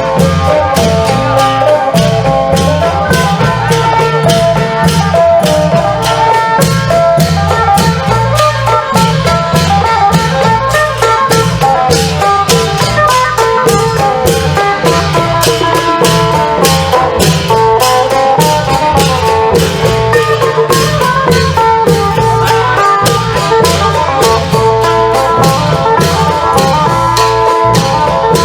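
Isan klong yao long-drum ensemble playing a fast, steady rhythm, with a phin (Isan lute) melody over the drums.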